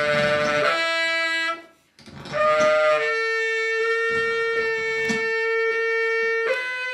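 Saxophone playing free-improvised sustained notes. The notes change pitch, drop out briefly about a second and a half in, then settle into one long steady held note that gives way to a new note near the end.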